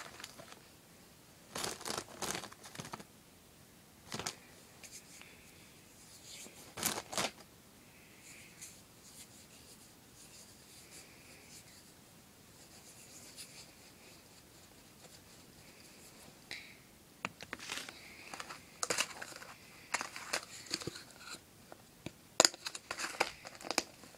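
Handling noise as modelling clay is worked in and around a plastic sushi mould: scattered rustling and crinkling with light plastic clicks. It comes in a few bursts at first, goes quieter through the middle, then turns busier with many clicks and rustles in the last third.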